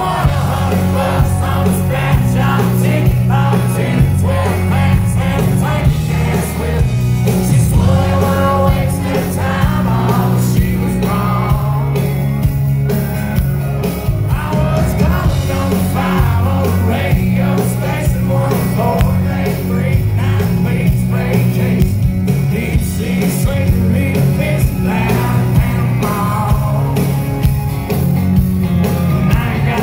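Live country band performing a song: a man singing lead over acoustic guitar and electric bass, loud and bass-heavy throughout.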